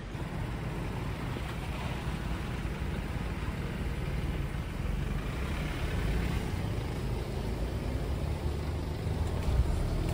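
Mercedes-Benz E-Class Cabriolet's engine running low and steady as the car rolls slowly past and pulls away. It grows gradually louder, with a brief louder moment near the end.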